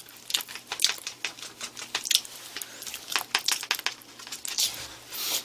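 Foil retort pouch crinkling and crackling in the hand as the last of the sauce is shaken out over a plastic tray of rice, with many small irregular clicks and ticks.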